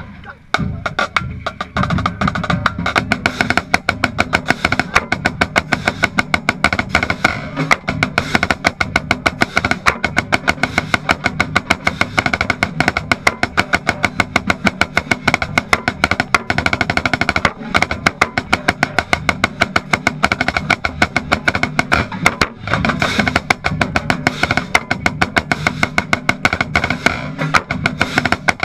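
Marching band playing, with a snare drum right at the microphone: rapid, steady snare strokes and rolls, the loudest sound, over the band's held notes.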